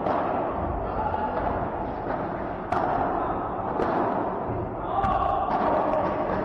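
Padel rally: the hard ball is struck sharply by paddles three times, once at the start, once near three seconds in and again about a second later, over a constant background murmur of the hall.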